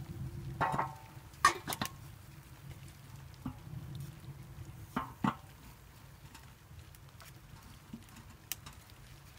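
Metal cooking pot and its lid clinking as they are set onto a wood-burning rocket stove: a few sharp clinks, the loudest about a second and a half in and a pair near the middle. Under them runs the stove's low, steady rumble as it draws hard.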